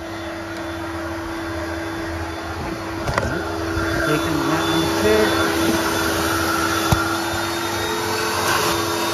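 Ultra Steam coin-operated carpet and upholstery extractor running, its vacuum motors making a steady suction noise with a constant hum. Two sharp knocks, about three and seven seconds in.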